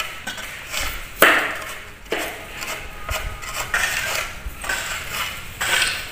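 Large kitchen knife cutting lengthwise through raw bitter melons: a run of crisp crunching cuts, several sharp strokes roughly a second apart.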